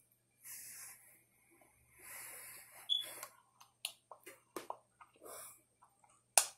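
A toddler drinking smoothie from a plastic cup: a few short breaths between sips, with small clicking mouth and swallowing sounds and one sharp click near the end.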